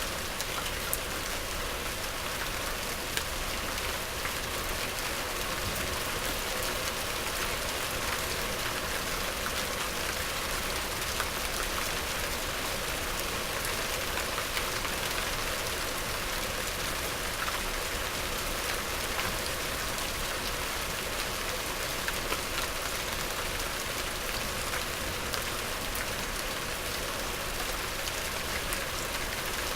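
Steady medium rain falling, an even hiss with many small drop ticks.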